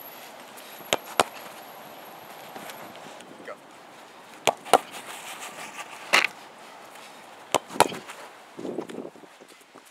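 Soccer ball being kicked and saved: sharp thuds, several coming in quick pairs about a quarter second apart. Near the end there is a short scuffling rustle.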